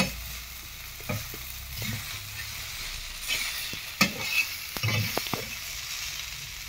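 Metal spatula scraping and tapping on a flat tava while fried kurdai crumbs are stirred, over a steady sizzle. The sharpest knock comes about four seconds in, with a few more clicks around five seconds.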